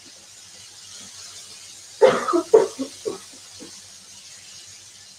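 Chopped vegetables sizzling softly in a frying pan as they are stirred with a wooden spatula. A few short bursts of a person's voice come about two seconds in.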